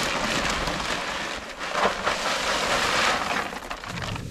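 Shelled corn pouring from a feed bag into a wooden trough feeder, kernels rattling down in a steady rush.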